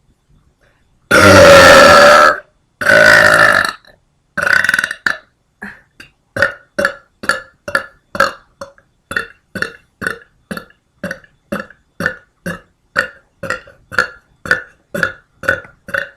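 A person burping loudly: two long burps, a shorter third, then a quick run of short, evenly spaced burps at about two and a half a second.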